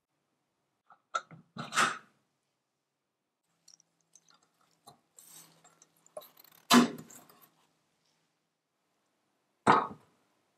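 Tin toy parts knocking and clacking as they are handled: a few separate sharp knocks with dead silence between, the loudest about seven seconds in, with a little light scraping of metal around it.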